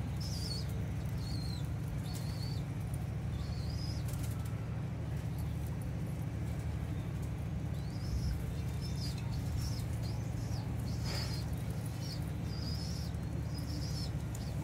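Feeding pigeons flapping their wings now and then, with short repeated high bird chirps that come thicker in the second half, over a steady low rumble.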